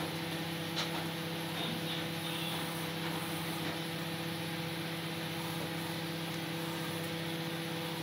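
ASDA George Home 800-watt microwave oven running at its 700-watt standard setting with food inside: a steady electrical hum over constant fan noise.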